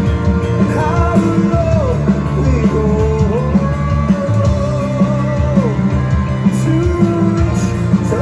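Heavy rock band playing live and loud, with distorted guitars, bass guitar and drums. A lead melody bends and slides in pitch over the top.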